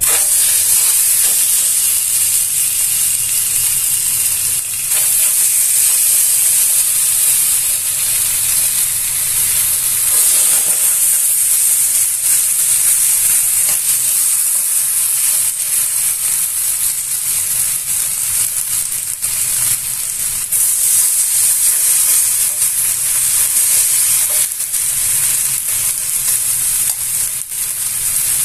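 Lamb ribs frying in a preheated Saladmaster electric skillet: a loud, steady sizzle that starts suddenly as the meat goes into the hot pan.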